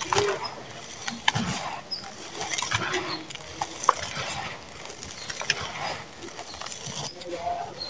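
Dry, gritty red sand-cement clumps being crushed and crumbled by hand in a bowl: irregular crunching and crackling with sandy grit trickling.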